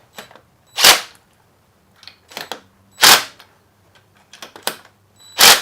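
Click-type torque wrench tightening engine case cover bolts: a loud sharp click three times, about two seconds apart, each as a bolt reaches its set torque, with softer ratchet ticks in between.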